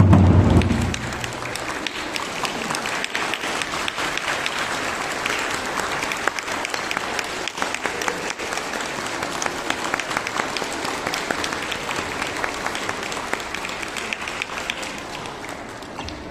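Audience applauding steadily, the clapping thinning out near the end; a deep, loud boom sounds at the very start and dies away within about a second.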